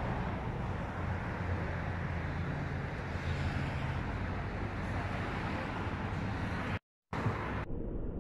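Steady rush of distant road traffic with a low engine hum. It cuts out briefly about seven seconds in and comes back quieter.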